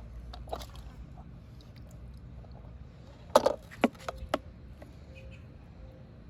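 Low rumble of wind and handling on a chest-mounted phone's microphone, broken about three and a half seconds in by a quick run of four sharp clicks or knocks.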